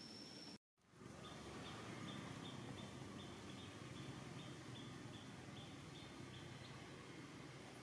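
Faint outdoor background noise, cut off by a brief silent gap just under a second in, then a short high chirp repeating about two and a half times a second for several seconds.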